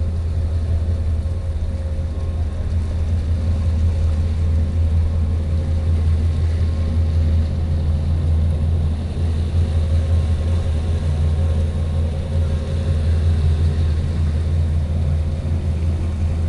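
Steady low rumble of a 64-foot Hike Metal patrol boat's machinery running, with a faint constant hum above it.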